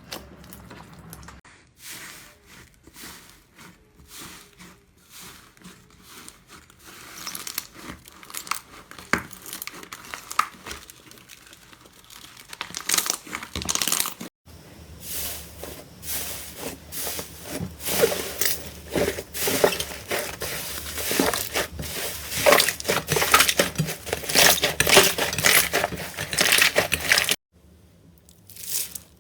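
Slime being pressed and stretched by hand, giving a steady run of fine crackles, pops and crinkles. The sound is sparse at first and grows louder and denser about halfway through; it cuts off abruptly twice.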